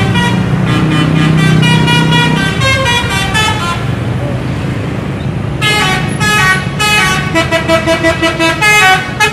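A bus's multi-tone musical horn plays a run of changing notes over engine rumble and passing traffic. About two-thirds of the way in it switches to a quick series of short toots.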